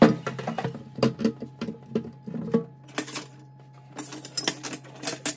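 Kitchen dishes and utensils clattering: a run of irregular knocks and clinks, loudest right at the start and in a busy cluster toward the end.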